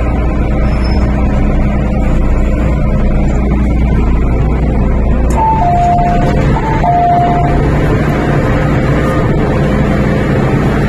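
Hong Kong MTR M-Train heard from inside the carriage as it runs, a loud steady rumble from the train and the track. A little past halfway a two-note chime sounds, the second note lower.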